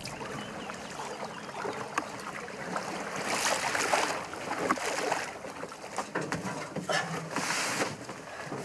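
Water splashing and sloshing as a large carp in a landing net is lifted from the water into a boat. Louder surges of splashing come about three to four seconds in and again near the end, with scattered knocks of handling.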